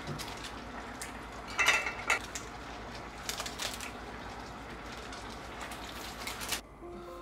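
Metal kitchen utensils clinking and scraping on cookware over a steady hiss, with a louder ringing clatter about a second and a half in.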